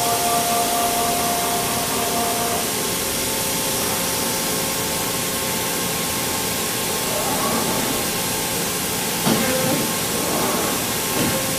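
Steady hiss of running machinery with a few faint steady hum tones, one of which drops out under three seconds in. A few brief knocks come between about nine and eleven seconds in.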